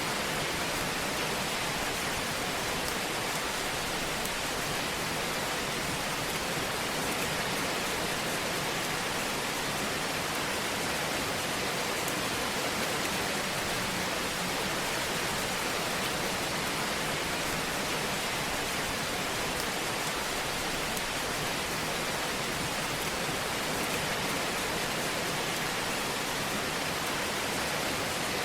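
Wood fire crackling in a fireplace: a steady hiss with faint, scattered crackles throughout.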